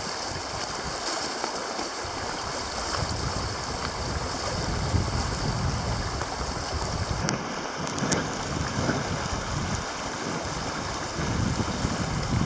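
Shallow river running fast over gravel riffles, a steady rushing, with gusts of wind buffeting the microphone.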